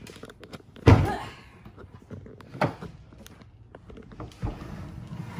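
Hard plastic lid of a Coleman wheeled cooler knocking and thudding as it is handled and lifted open: one loud thud about a second in, then a couple of lighter knocks.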